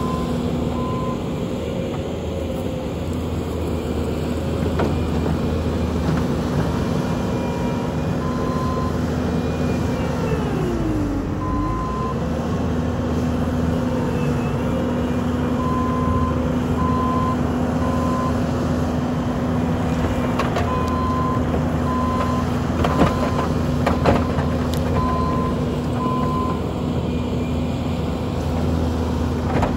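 Bobcat T770 compact track loader's diesel engine running steadily. About ten seconds in its engine speed drops sharply and recovers, as under a sudden load. Its backup alarm beeps on and off for much of the time.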